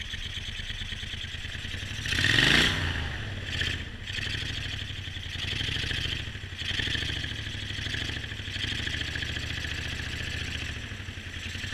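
Boat outboard motor running at speed under a steady hiss of water rushing past the hull. About two seconds in, the engine pitch briefly rises and falls with a louder rush.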